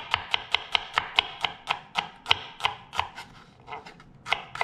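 Chef's knife slicing a shallot thin on a bamboo cutting board: quick, even taps of the blade on the board, about four or five a second, easing briefly near the end before picking up again.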